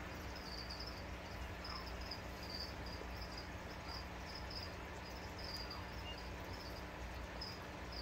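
A steady low hum, with faint high-pitched chirps repeating irregularly, about one or two a second.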